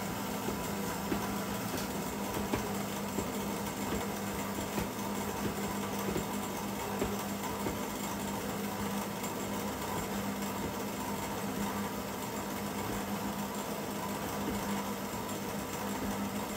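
Electric stand mixer running steadily on its slowest speed, a constant motor hum as it mixes cake batter.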